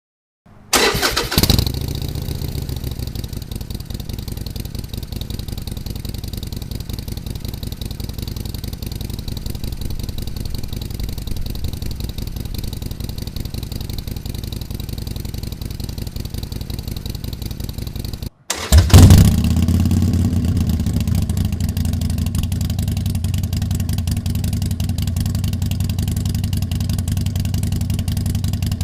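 Harley-Davidson Sportster Forty-Eight V-twin engine started and idling steadily, first through the stock exhaust. After a short break about 18 seconds in it starts again and idles through the aftermarket Rinehart exhaust, clearly louder and with a deeper rumble.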